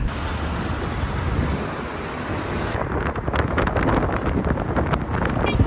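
Wind and road noise from a moving car heard at an open side window, with wind gusting on the microphone in the second half.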